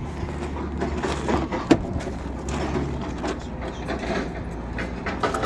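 A steady low hum with scattered clicks and knocks, one sharper knock about a second and a half in; the hum thins out about three seconds in.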